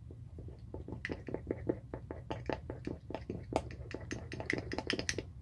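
Toothbrush stirred briskly in a drinking glass of foamy water, clicking against the glass in quick light taps, about five a second.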